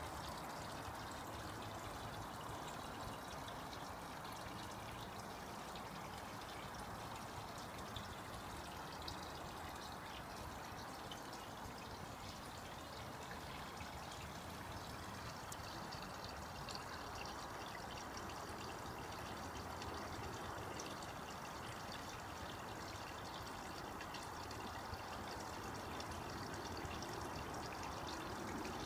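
Water pouring and trickling steadily into a koi pond, a constant splashing flow.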